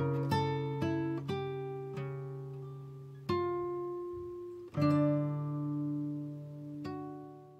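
Background music: a slow acoustic guitar piece, with single plucked notes and chords ringing out and fading a second or more apart.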